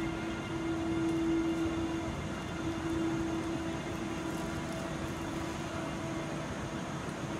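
Bombardier TRAXX electric locomotive (NS class 186) hauling intercity coaches, rolling slowly into the platform, with a steady hum from its traction equipment over the rumble of the train.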